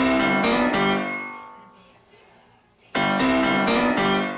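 Phone alarm tone: a short, piano-like chimed phrase sounds twice, about three seconds apart, each time ringing on and fading out.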